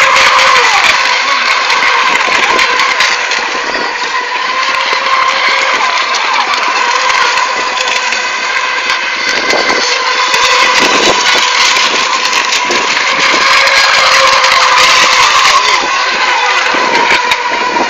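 Electric-powered FSR-E racing RC boats running at speed: a steady high whine from the motors and propellers that wavers slightly in pitch.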